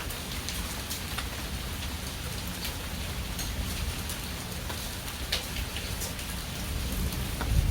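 Steady rain from a thunderstorm pouring down, with sharp drip ticks on nearby surfaces over the even hiss. A low rumble underneath swells near the end.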